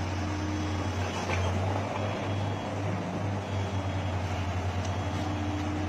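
Komatsu PC200 excavator's diesel engine running with a steady low drone while it powers a pile-driving attachment on a concrete pile.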